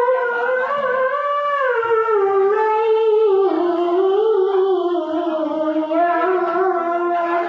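A young boy reciting the Quran in the melodic tilawah style into a microphone: one long unbroken phrase, ornamented with quavering turns, sinking in pitch about three seconds in and held lower after that.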